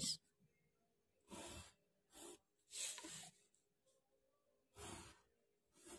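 Near silence, with four faint short scratches of a mechanical pencil drawing lines along a ruler on paper.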